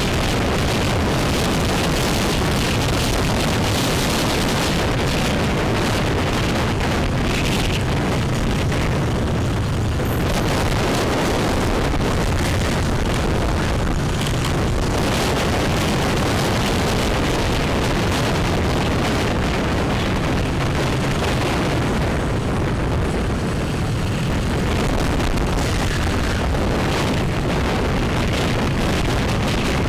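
Steady wind rushing over the microphone of a camera on a moving motorbike, with road and traffic noise underneath. The noise is loud and dense, with a deep rumble and no clear engine note.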